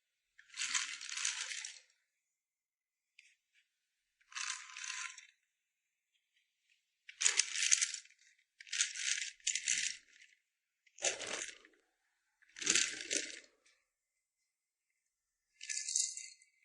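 Rattling in about eight short bursts, each under a second long, with silence between them.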